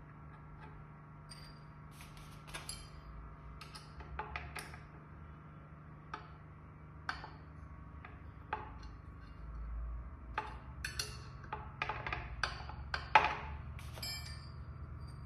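Sharp metal clicks and clinks of aluminium bracket fittings being handled and fitted together, scattered irregularly and coming thicker in the second half, with one louder clack about 13 seconds in, over a faint steady hum.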